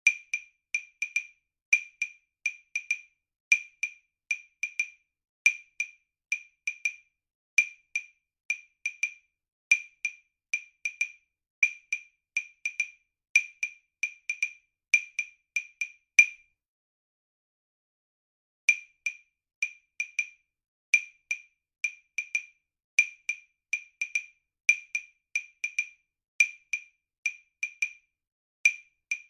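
Wood block ticking out a repeating syncopated rhythm in three-four time. The pattern breaks off after a loud accented stroke about sixteen seconds in and starts again about two seconds later.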